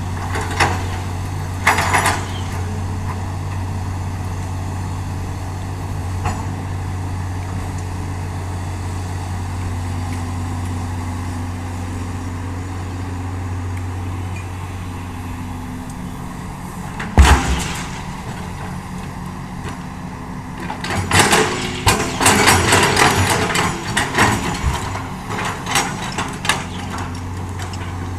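Hitachi excavator's diesel engine running steadily. A single sharp clank comes about two-thirds of the way through, and a stretch of irregular clattering and scraping follows near the end.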